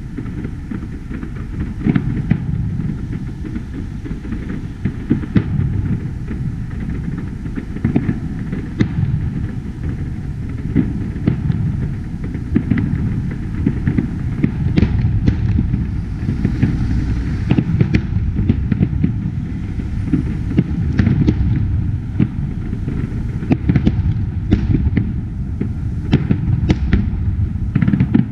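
Distant fireworks display: a constant low rumble with many sharp bangs and crackles, coming faster and thicker about halfway through.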